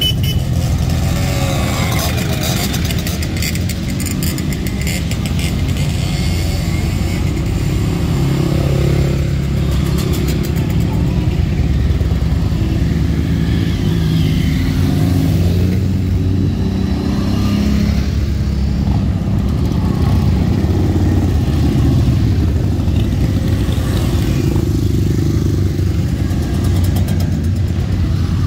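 A line of motorcycles riding past one after another, their engines running loudly without a break. The pitch rises and falls as bikes accelerate through.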